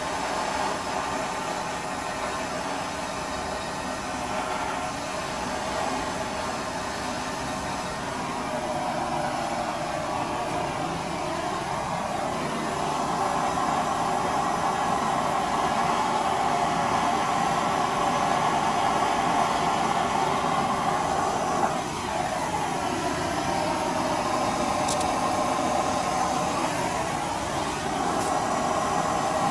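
Handheld blowtorch burning with a steady rushing hiss as it heats oil paint on a canvas. It grows louder about halfway through, and its tone sweeps up and down a few times.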